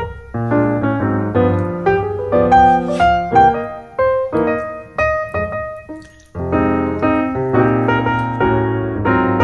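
Background piano music: piano notes struck in a melody over lower chords, briefly thinning out about six seconds in.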